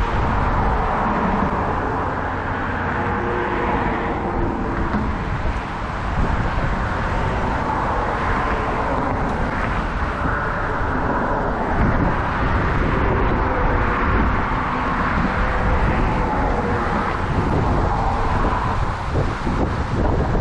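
Steady low rumble of a running motor with wind on the microphone and a faint hum running through it.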